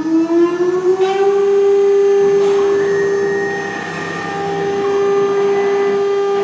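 3 kW water-cooled CNC router spindle, run by an inverter, spinning up with a rising whine that levels off about a second in, then holding a steady high whine at full speed.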